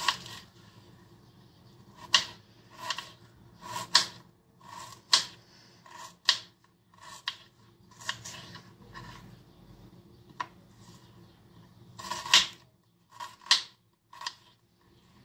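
Knife cutting an onion on a cutting board: a string of short, sharp cuts at an uneven pace of about one a second, some louder than others.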